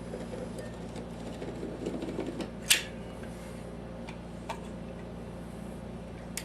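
A steady low hum with a few sharp clicks over it, the loudest a little under three seconds in and fainter ones later.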